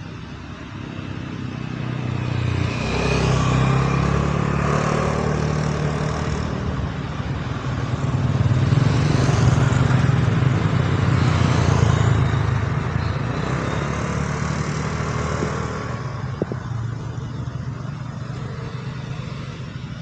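Road vehicle engines passing through a bend, one after another: the sound swells a couple of seconds in, swells again in the middle as a motorcycle rides by, then fades away.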